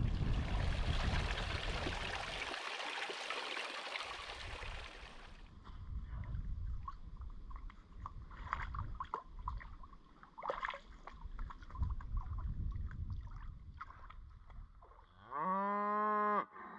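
Wind on the microphone, then irregular splashing and sloshing as a person washes standing waist-deep in a pond. Near the end a sheep bleats once, one long call that rises at its start and then holds.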